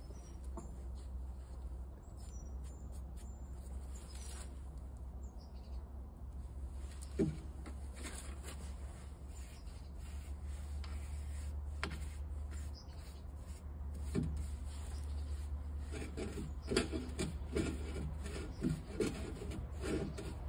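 Paintbrush bristles rubbing and dabbing rust neutralizer onto rusty steel, with short light knocks as the steel flange is handled, most frequent near the end. A steady low hum runs underneath.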